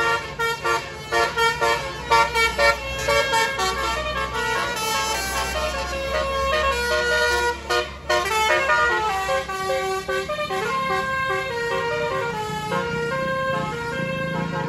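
Basuri 'telolet' musical bus horn playing a tune: quick short stepping notes at first, then longer held notes from about eight seconds in, over a low steady rumble.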